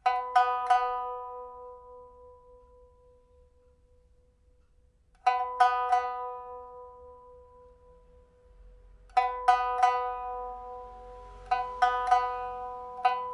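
Solo pipa with a hongsuanzhi (red rosewood) body and a newly replaced soundboard and frets, being test-played. Three times a short group of quick plucked notes rings out and slowly fades, and the playing grows denser near the end.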